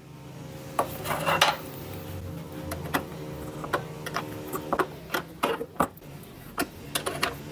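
Combination wrench clinking on a nut and metal backing plate as the nut is tightened onto a bolt through a plastic washing-machine tub: a run of short, irregular metal clicks and taps.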